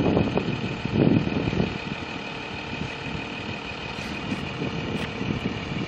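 Diesel engine of a Dongfeng garbage compactor truck idling steadily, with wind buffeting the microphone during the first second or so.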